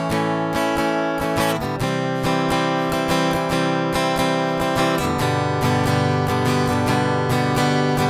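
Acoustic guitar strummed fast and evenly in a punk rhythm, with no voice. The chord changes about two seconds in and again about five seconds in.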